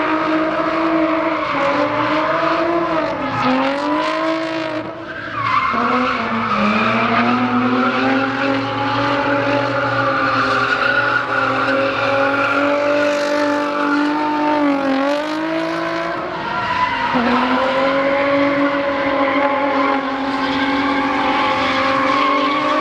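A drift car's engine is held high in the revs as the car slides, with tyres squealing. The engine note drops sharply and climbs back several times, most deeply about five seconds in.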